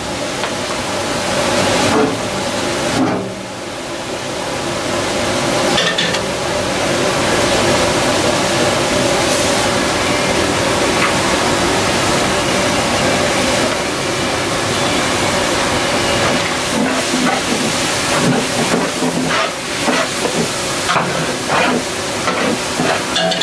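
Cauliflower florets in batter deep-frying in hot oil in a large iron kadai: a steady sizzle and bubbling. A long metal skimmer stirs them, giving occasional scrapes and knocks against the pan, more often near the end.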